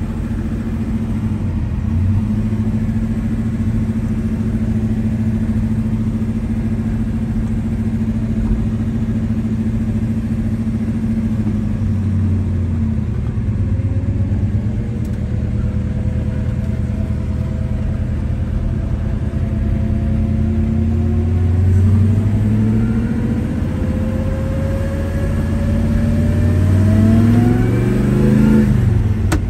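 1970 Chevelle SS454 LS6's 454 big-block V8 running as the car is driven, heard from inside the cabin: a steady low rumble that climbs in pitch under acceleration around the middle and again in the last several seconds.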